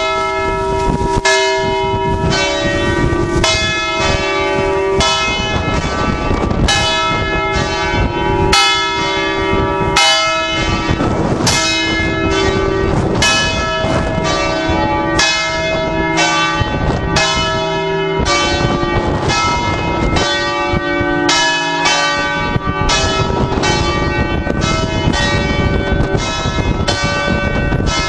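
Several large church bells in the campanile of St Mark's Basilica, Venice, swinging and ringing together, heard loud and close. Strokes of different pitches overlap and come more than once a second, each ringing on under the next.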